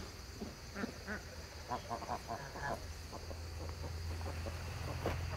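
Farm waterfowl calling: a quick series of short calls between about one and three seconds in, over a steady low rumble.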